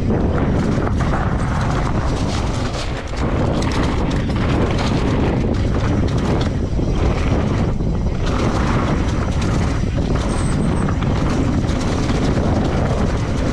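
Wind buffeting the microphone of a handlebar-mounted camera while a mountain bike is ridden fast down a dirt trail. Tyre rumble runs under the wind, with frequent short knocks and rattles from bumps.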